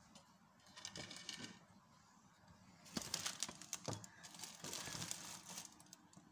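Faint kitchen handling noises: light scrapes about a second in, then a cluster of quick clicks and scrapes from about three to five and a half seconds in.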